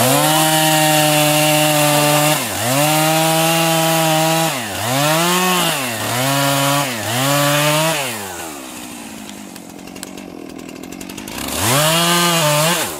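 Stihl two-stroke chainsaw making the felling cut through a tree trunk behind the notch, running at high revs with the engine pitch dipping and recovering several times as the chain bites. About eight seconds in it drops to idle, then revs up again near the end.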